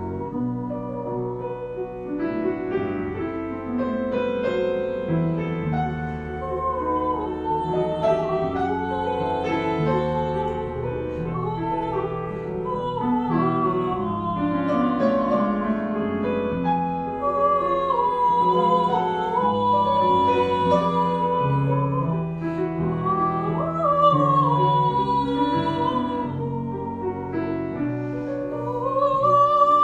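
Soprano singing a classical melody with vibrato, accompanied by grand piano; the voice swells louder near the end.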